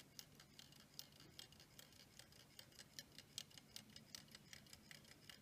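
Faint, even ticking of an E. Howard & Co. Boston tourbillon pocket watch movement, its escapement beating about five times a second.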